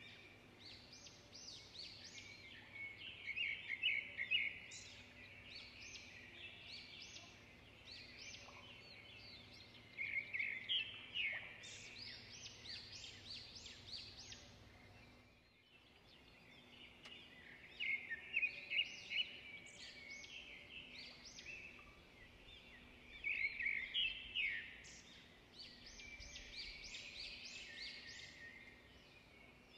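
Songbirds singing in short bursts of quick, high chirps, repeated every several seconds over a faint steady background hum.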